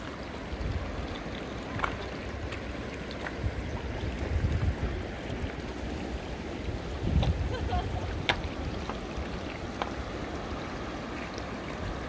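Shallow river water trickling over a stony riverbed, with gusts of wind on the microphone about four and seven seconds in and a few scattered faint ticks.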